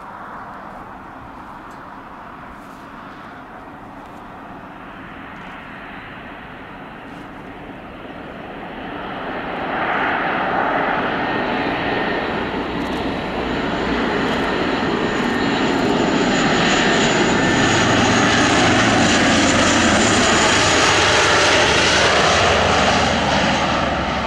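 Engines of an arriving aircraft, growing louder as it approaches and passes low overhead, with a whine that dips in pitch as it goes by and fades near the end.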